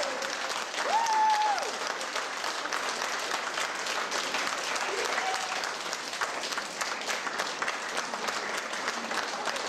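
Small audience applauding steadily by hand, with a short cheering call about a second in and a fainter one about halfway through.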